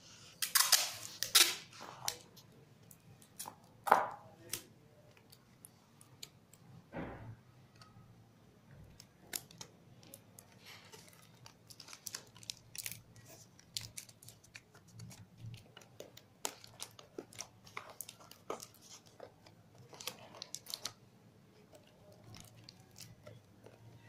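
Cardboard and paper being handled by hand: irregular rustling, sliding and light knocks and clicks. The loudest stretch of rustling comes about a second in, with a sharp knock at about four seconds.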